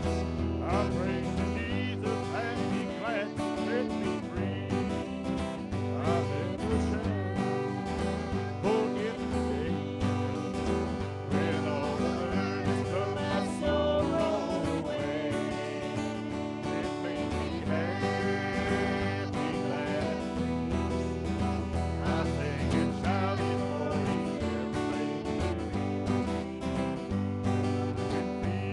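Live country-gospel song: acoustic guitar strumming under a group of voices singing.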